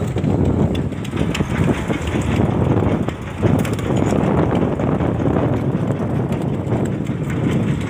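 Fishing boat's engine running, a steady low rumble.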